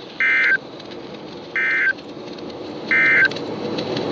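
EAS (SAME) end-of-message data bursts over NOAA Weather Radio: three short, identical buzzing digital bursts about a second and a half apart over steady radio hiss, signalling the end of the alert message.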